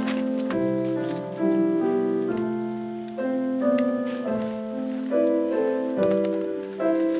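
Grand piano playing a slow hymn prelude in full, sustained chords that change about once a second.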